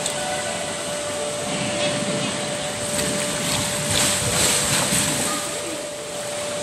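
Steady fan or blower rush with a constant hum. It grows louder about four seconds in, under faint voices in the background.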